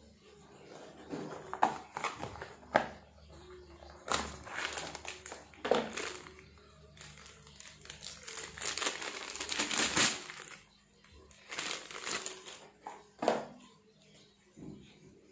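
Plastic wrapping crinkling and rustling as a cast-iron pillow block bearing unit is unwrapped, with a few sharp knocks of the metal bearing housings and pulleys being handled and set down.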